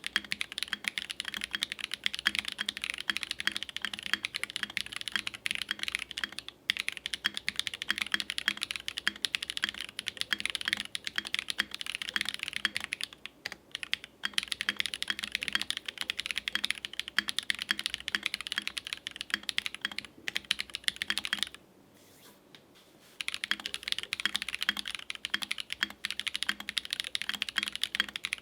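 Continuous fast typing on a Think6.5 V2 custom mechanical keyboard with a polycarbonate case, FR4 plate and lubed, filmed Holy Panda tactile switches, with a brief pause in the typing about three quarters of the way through.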